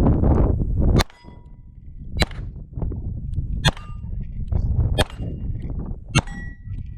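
Five 9mm shots from a Beretta 92 pistol, roughly one every 1.2 seconds. Each shot is followed by the clang and brief ring of a hit steel plate target.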